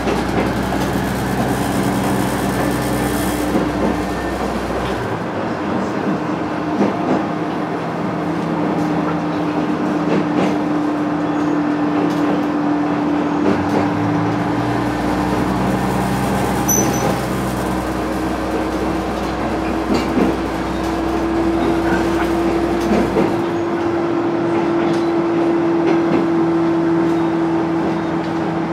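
KiHa 110 series diesel railcar running along the track, heard from inside the car: a steady engine drone whose pitch creeps slightly upward, with a deep rumble that comes and goes and scattered clicks from the wheels on the rails while it crosses a steel truss bridge.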